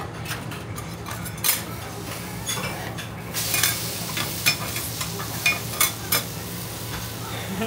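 Yakisoba noodle cake sizzling on a hot steel teppan griddle, with a metal spatula scraping and clicking against the plate several times, over a steady low hum.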